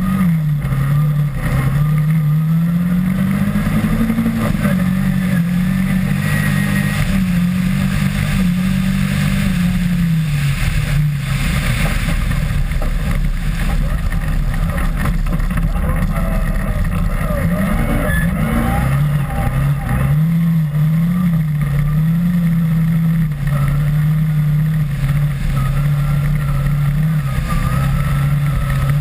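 Rally car engine running hard, its pitch climbing and dropping with throttle and gear changes and easing off for several seconds midway, over a steady rush of tyres on snowy slush and thrown snow.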